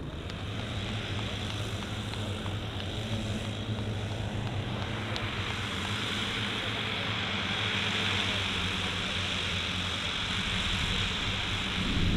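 The twelve 10 cc OS model engines of a 1:10 scale Dornier Do X flying boat running together as it taxis, a steady multi-engine propeller drone that slowly grows louder.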